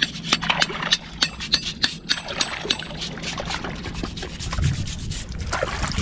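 Hard seashells being scraped clean by hand: rapid, irregular scraping and clicking strokes, busiest in the first half and thinning out later.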